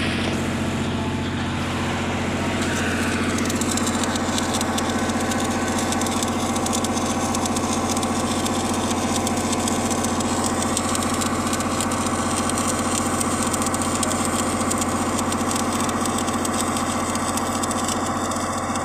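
A machine running steadily, with an engine-like hum that has a strong low drone and even overtones. A dense fine crackle sits on top from a few seconds in.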